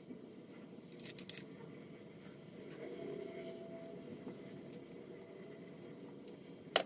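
Metal spoon clinking against a drinking glass while spreading whipped coffee: a quick cluster of clicks about a second in, a few faint ticks, and one sharp ringing tap near the end, over a steady low hum.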